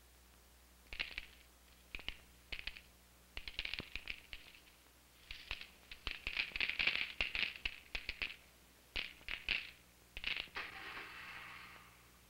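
Crisp breakfast cereal crackling and popping in irregular clusters of small snaps, busiest about six to eight seconds in, with a softer hiss near the end.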